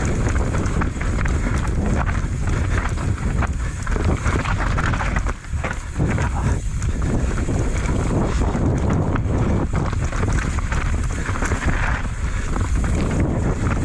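Wind buffeting a GoPro Session's microphone at speed on a downhill mountain bike run, with the Commencal Meta AM 29 bike clattering and rattling over rough trail. Briefly quieter about five seconds in.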